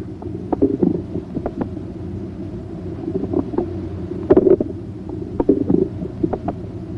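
Bowel sounds heard through a stethoscope's diaphragm over the right lower quadrant of the abdomen. Irregular clusters of gurgles and clicks come every second or two over a steady low rumble.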